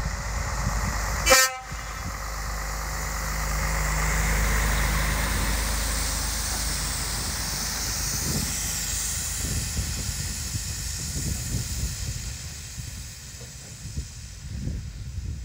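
Scania R113 tractor unit's straight-six diesel and its tyres on the wet road as the truck and low-loader trailer drive past. The engine rumble builds to a peak about four seconds in, there is tyre hiss as it passes, and the sound then fades as it drives away. A brief, sharp, loud sound about a second and a half in.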